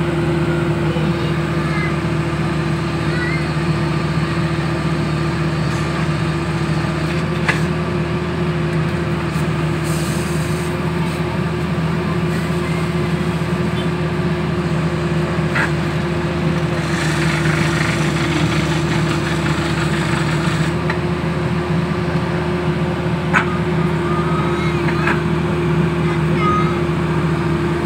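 Engine of a horizontal directional drilling rig running at a steady speed while the rig drives drill rod into the ground. Three sharp knocks come roughly eight seconds apart.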